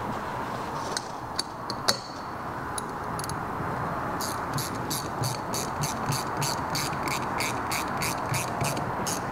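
Hand ratchet with an Allen bit clicking steadily, about four clicks a second, as it runs in the Loctited Allen screw that holds the camshaft retaining plate on the cylinder head. A few separate metal clicks and taps come first, as the tool is fitted.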